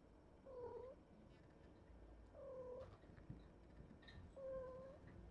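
A kitten meowing faintly: three short meows about two seconds apart.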